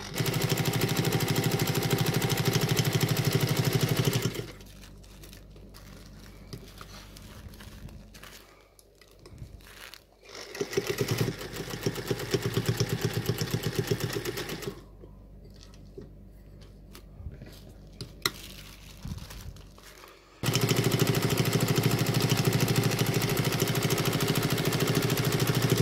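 Vintage black sewing machine running in three bursts of a few seconds each: at the start, in the middle and near the end. Between the bursts it stops, with a few light clicks.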